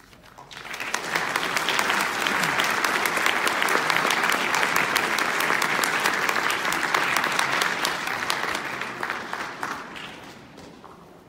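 Audience applauding: the clapping swells up within the first second, holds steady, then thins out and fades over the last two seconds or so.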